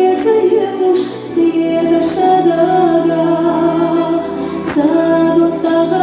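Music: a woman singing a slow, sustained melody over accompaniment, with a steady low drone coming in after about a second and a half.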